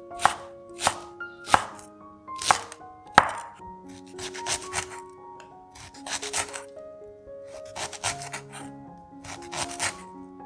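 Chef's knife slicing a torch ginger flower bud on a wooden cutting board: five sharp single chops in the first three seconds, then quick runs of several slices roughly every second and a half. Soft piano music plays underneath.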